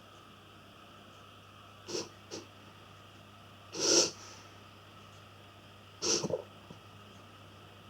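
A pet reverse sneezing: short bursts of noisy breath through the nose. Two quick ones come about two seconds in, the loudest about four seconds in, and a longer, broken one about six seconds in.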